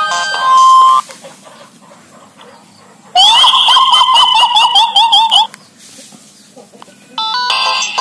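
Nokia 3200 ringtone previews playing through the phone's small speaker. A multi-note electronic tune breaks off about a second in. After a short pause, a tone of fast, repeated rising chirps plays for about two seconds, and near the end another multi-note melody begins.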